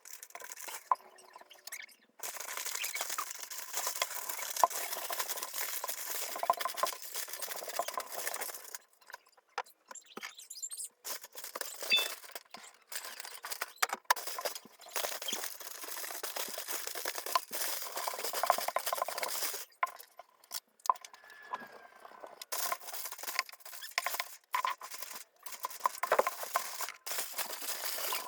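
Scratchy rubbing and scraping by hand on a hard surface, in stretches of several seconds with short pauses, dotted with small clicks and clinks.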